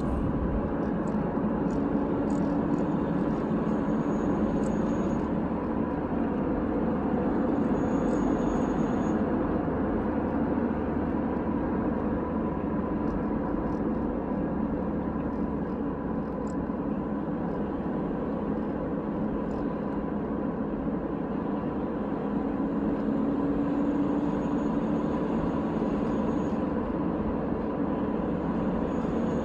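Volkswagen Jetta TDI's 1.9 L BEW diesel and 5-speed manual driveline running under load, with engine and road noise and a whine over them. The owner suspects the differential or the turbo.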